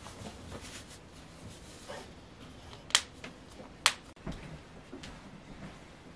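Two sharp clicks about a second apart from handling at a baby's changing table, over a low background.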